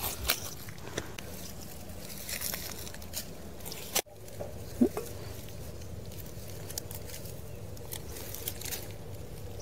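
Light rustling and small crackles of dry grass and leaves as plant shoots are picked by hand, with scattered faint clicks. The sound drops out abruptly for a moment about four seconds in.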